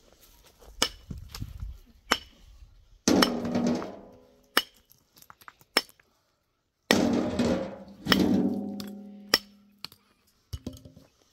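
Sharp knocks and clicks, with two heavier impacts about three and seven seconds in that ring on and fade over a second or more; the sound cuts to dead silence for a moment just before the second one.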